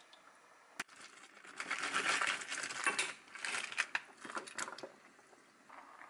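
Stovetop cooking sounds: a sharp click about a second in, then a few seconds of crackling, splashing noise with small clinks, easing off near the end.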